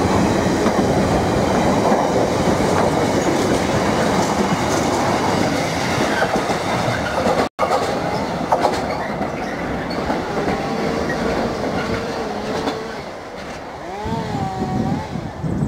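Container freight train's wagons rolling past close by, loaded intermodal flat wagons clattering over the rail joints. About halfway the noise drops, and the receding tail of the train rounds a curve with faint wheel squeal.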